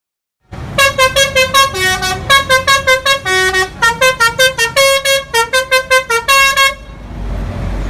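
A bus's basuri horn, a multi-tone musical horn, playing a quick tune of short loud notes, several a second. It starts about half a second in and stops near the end, leaving a low engine rumble.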